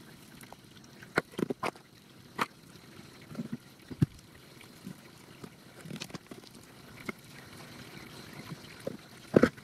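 Scattered scuffs and knocks of bare feet and hands scrambling over rock and loose stones, the loudest a close pair of knocks near the end, over a faint trickle of water.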